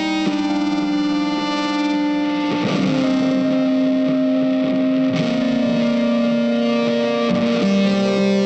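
Background music: sustained distorted electric guitar notes.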